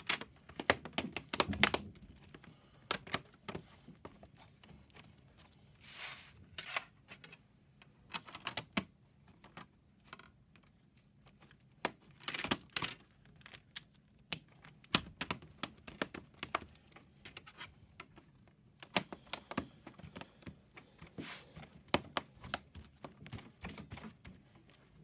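LEGO plates and bricks being handled and pressed together: irregular clusters of small hard plastic clicks and taps.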